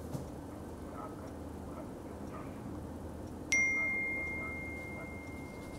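A single bright ding of a mobile phone's message alert about three and a half seconds in, ringing out slowly over the next two seconds, over a low steady room hum.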